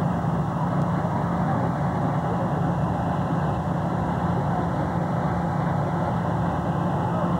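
Diesel tractor engine working steadily under load as it drags a bulldozer, holding an even pitch without revving up or down.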